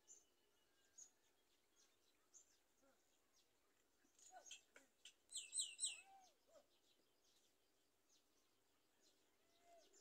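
Birds calling: thin high chirps about once a second, and a little past halfway a quick run of three loud, falling squeaky calls, with a few lower downward-arching notes around them.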